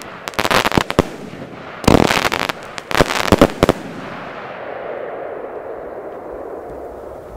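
Consumer firework battery firing shots that burst overhead with bangs and crackling, in three quick clusters in the first four seconds. The bursts then fade into a long dying echo.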